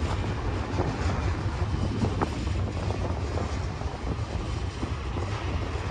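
Freight train on the tracks alongside, giving a steady low rumble, with a faint click about two seconds in.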